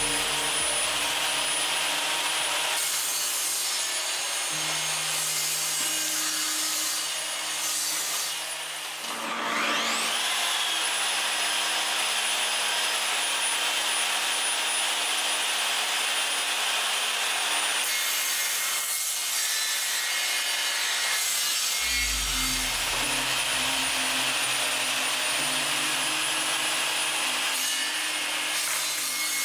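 Table saw running and ripping a board, with a steady high blade whine over the cutting noise. About nine seconds in the whine sweeps sharply up in pitch, and about 22 seconds in a lower hum joins it.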